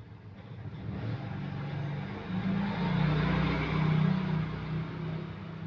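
A motor vehicle's engine passing by, growing louder to a peak in the middle and then fading.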